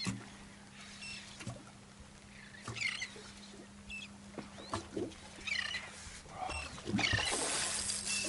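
Birds calling in short high chirping bursts, about one every second or two. Near the end comes a rush of splashing water as the hooked redfish thrashes at the surface.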